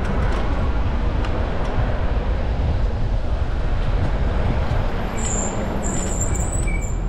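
Steady low rumble of wind on a bike-mounted action camera's microphone, mixed with street traffic noise, while riding an e-bike down a city street. In the last couple of seconds a few faint high-pitched tones sound briefly.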